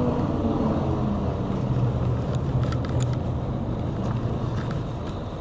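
Electric bike in motion: wind and tyre noise with a low hum, easing off as the bike slows from about 16 to 8 mph.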